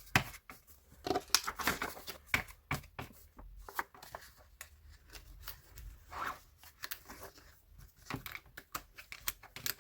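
Paper planner pages rustling, with irregular small clicks and snaps as they are handled and fitted onto a disc-bound planner's discs.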